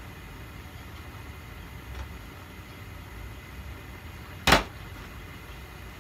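Gas stove burner on a high flame, a steady low rumble under a pot of stew coming to the boil, with one sharp knock about four and a half seconds in.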